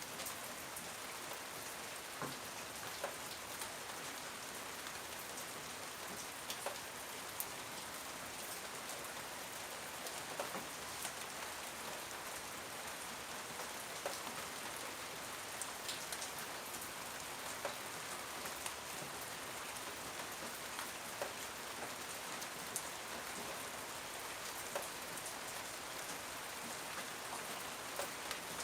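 Steady rain falling, an even hiss with scattered louder drops ticking on a surface.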